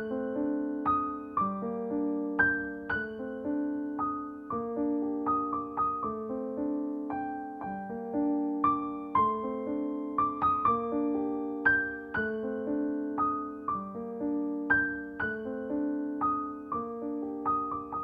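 Piano music: a slow, even pattern of struck notes and chords, each ringing and fading before the next.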